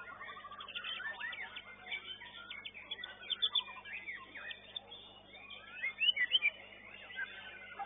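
White-rumped shama (murai batu) singing a rapid, varied song of high chirps, trills and whistled slides, with louder flurries about three seconds in and again around six seconds.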